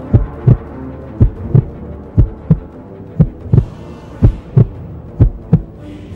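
Heartbeat sound effect, a lub-dub double thump about once a second, over a faint sustained music drone.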